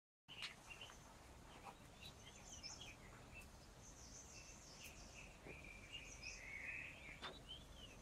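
Faint birdsong: several birds chirping and whistling, with one longer held whistled note about five seconds in, over a low background hum of open-air noise.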